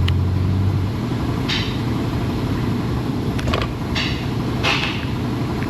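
A vehicle engine running steadily with a low rumble, and a few light clicks about one and a half, three and a half, four and nearly five seconds in.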